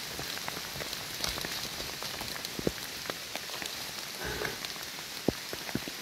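Steady rain pattering on wet fallen leaves, with many scattered sharp drop hits; two louder ones land about two and a half and five seconds in.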